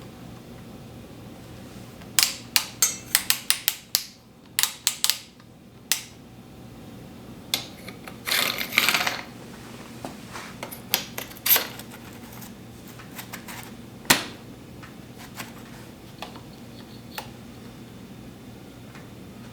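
Bicycle parts and tools being handled on a workbench: a quick run of sharp metallic clicks that come closer together, a short rustle, then scattered single clicks and knocks.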